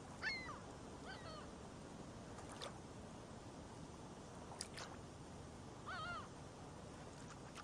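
Faint, steady rush of a river flowing over rocks, with a few short bird calls that bend in pitch, near the start, about a second in, and around six seconds in.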